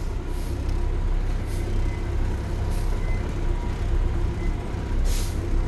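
Pickup truck engine running with a steady low rumble while the truck moves slowly, with a few short hissing bursts over it.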